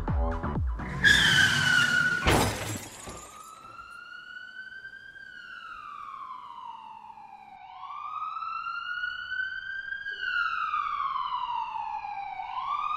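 Staged car-crash sequence: a short high screech and a loud crash with breaking sounds about two seconds in, then an emergency-vehicle siren wailing slowly up and down.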